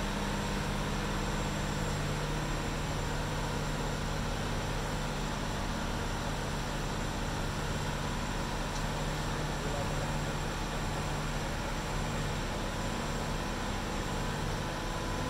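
Mobile crane's engine running steadily while the crane holds a boat hull in slings: an even low hum with a hiss over it.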